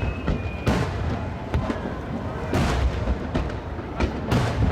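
Aerial fireworks shells bursting overhead: about half a dozen bangs in quick, uneven succession.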